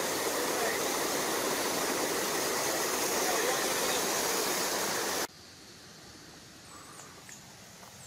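River water rushing over a low rock cascade, a steady full rush that cuts off suddenly about five seconds in, leaving a much quieter outdoor background with a few faint high chirps.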